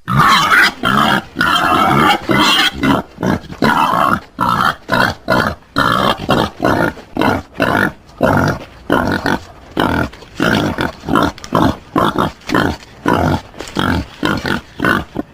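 Wild boar grunting in a rapid string of short, rough grunts, about two or three a second.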